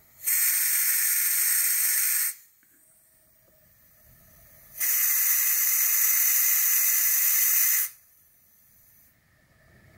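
Air hissing out at a quad-bike tyre valve where the compressor's hose chuck is fitted, in two bursts, about two and three seconds long. There is no compressor motor running.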